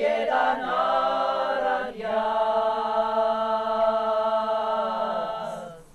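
Women's folk song ensemble singing a cappella: a few sung notes, then a long held final chord that dies away shortly before the end.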